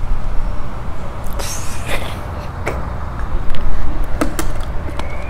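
Steady low outdoor rumble on a clip-on microphone, with a brief rustle about one and a half seconds in and several sharp clicks later on.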